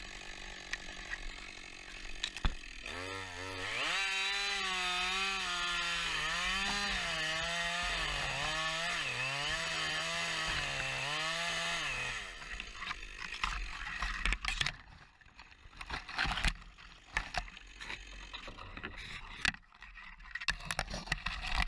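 Husqvarna 560XP G chainsaw revved up about three seconds in and held at high throttle through a cut for about eight seconds, its pitch dipping and recovering repeatedly under load. Then the engine drops away and scattered knocks and cracks follow.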